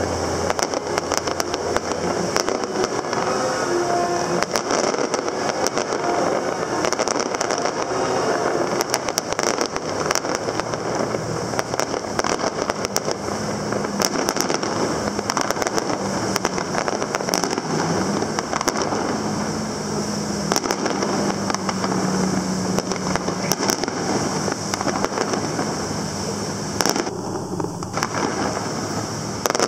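Fireworks display: a dense, unbroken run of bangs and crackling from many shells bursting, with a low steady hum through the middle stretch.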